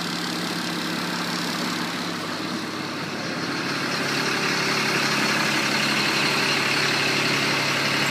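An engine idling steadily, its note shifting and getting a little louder about halfway through.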